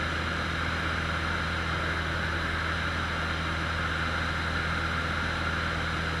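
Cessna 150's four-cylinder Continental O-200 engine and propeller droning steadily, heard inside the cockpit, with a steady hiss of airflow over it.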